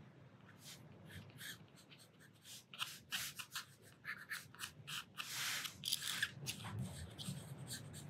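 Watercolour pencil scratching across paper in short, irregular strokes, with a longer stroke about five seconds in; faint.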